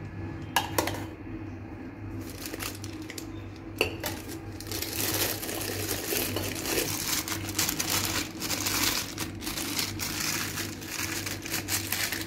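Plastic piping bag crinkling and rustling as it is filled with whipped cream and then gathered and squeezed by hand. A few sharp clicks of a metal spatula against the glass and bowl come in the first few seconds.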